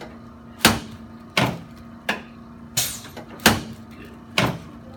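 A regular series of short knocks, about one every 0.7 seconds, over a steady hum.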